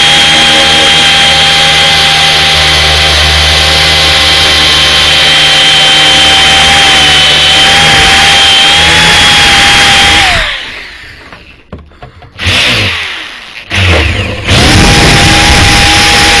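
Grinder with a wheel running at full speed against painted sheet metal, a loud steady whine. About ten seconds in it is switched off and winds down in pitch, gives two brief blips, then spins back up to speed and keeps grinding.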